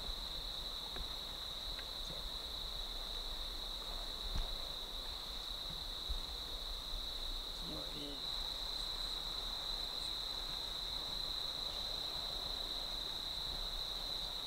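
Insect chorus at dusk: a steady, high-pitched trilling held in one narrow band, a little louder from about halfway through. A brief soft low sound comes about eight seconds in.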